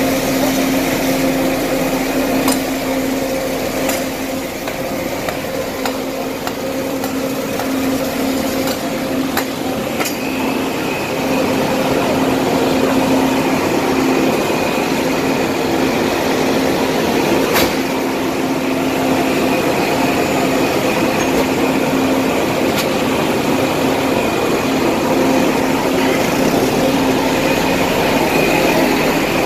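Steady low hum with a higher whine under street noise, broken by a few sharp knocks: tools striking a shop's glass front.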